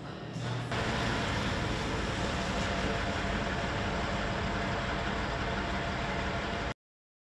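Steady outdoor street noise, a rushing traffic-like roar. It starts abruptly under a second in and cuts off suddenly to silence near the end.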